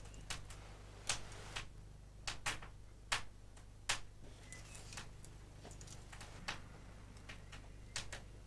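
Faint, irregularly spaced clicks and ticks over a low steady hum.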